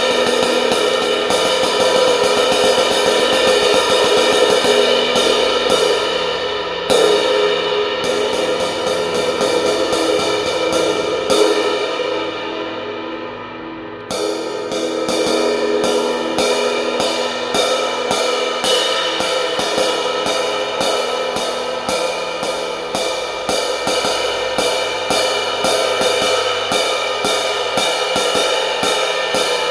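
A 20-inch Zildjian K Sweet Brilliant Crash cymbal (prototype) played with drumsticks: rapid strokes over a bright, ringing wash. There is a harder hit about seven seconds in. Near the middle the strokes stop and the cymbal rings down for a couple of seconds, then fast strokes resume.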